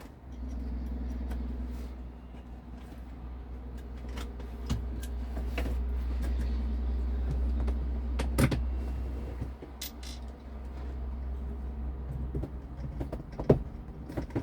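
Low rumble of wind buffeting the microphone, easing after about nine and a half seconds, with a few sharp clicks and knocks.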